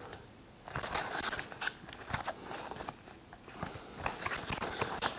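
Small cardboard product box being opened by hand: irregular crackling, rustling and scraping of cardboard and packaging, starting a little under a second in.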